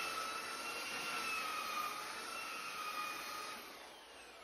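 Handheld electric belt sander running against a wooden keel blank, shaping its bevel, with a steady whine. About three and a half seconds in it is switched off, and the whine falls as the motor and belt spin down.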